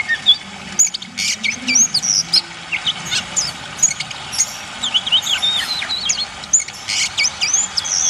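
Songbirds chirping in quick, rapidly gliding whistled notes over a steady trickle of running water.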